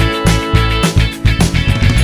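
Background music with a steady driving beat and guitar.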